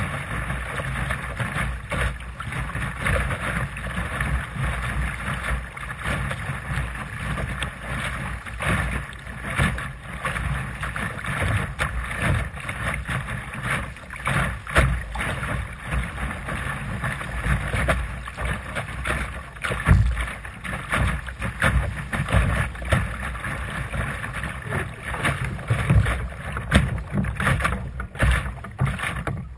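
Water rushing and slapping against a Sunfish sailboat's hull as it sails through choppy water, with wind buffeting the microphone.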